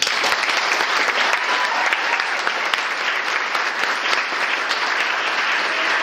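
Audience applauding, breaking out all at once and keeping up at a steady level.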